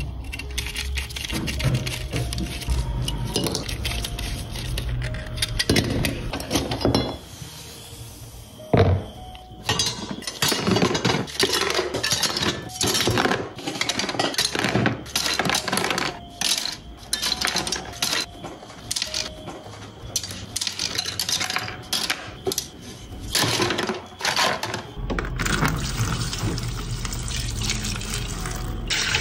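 Diecast metal and plastic model-car parts clinking and clattering irregularly as they are put into a clear plastic tub. Near the end comes a steady stream of liquid poured over the parts.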